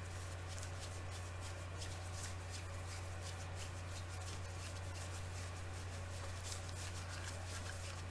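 Quiet room tone: a steady low hum with faint scattered clicks and rustles.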